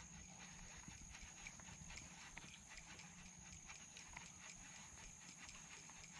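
Near silence: faint scattered ticks over a thin, steady high-pitched hum.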